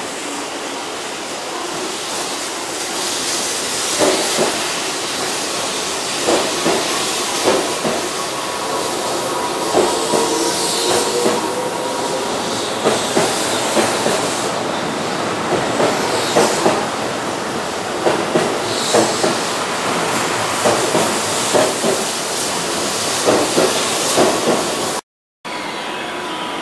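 Keihan 8000-series electric train running past close by along the platform: a steady hiss of running with repeated wheel knocks over the rail joints.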